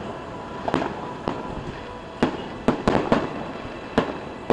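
Aerial fireworks shells bursting in an irregular series of sharp bangs, about eight, some closely spaced, between quieter stretches.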